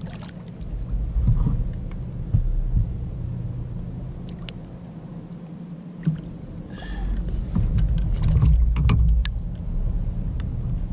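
Small splashes and knocks as a redfish is held in the water beside a kayak for release, over a low rumble of wind and water on the microphone. A brief squeaky tone comes about seven seconds in.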